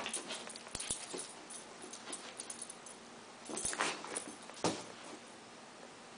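Pembroke Welsh corgi puppy scrambling and pouncing after a feather wand toy: scattered scuffles and clicks, a denser burst of rustling about three and a half seconds in, and a sharp knock near five seconds.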